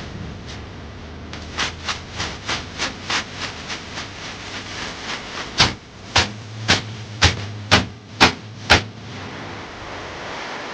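Oak bath brooms (veniks) striking a body in a banya steam room: a run of light, quick strokes about three a second, then about seven harder strokes roughly half a second apart.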